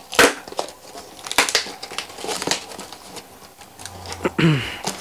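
Cardboard shipping box and its packing tape crinkling and crackling as they are handled and pulled open by hand, with sharp rustles and knocks. Near the end comes a short sound that falls in pitch.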